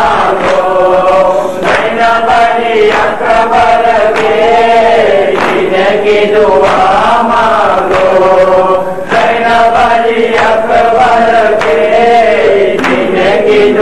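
A group of men chanting a noha (Shia lament) in unison with a lead reciter on microphone. Dull slaps of hands striking chests (matam) come through roughly once a second.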